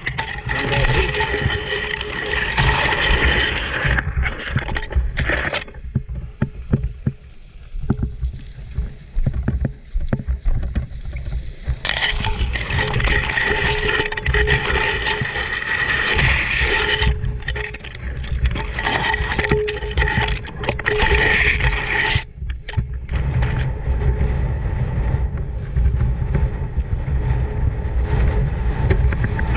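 Motorcycle engine revving and easing off again and again, the revs falling away for several seconds about six seconds in and briefly twice later.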